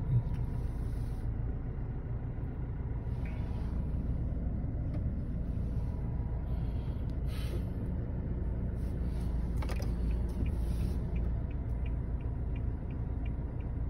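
Steady low rumble of a car driving slowly over a rough dirt track, heard from inside the cabin: engine and tyre noise. There is a short knock about ten seconds in and a light, rapid ticking near the end.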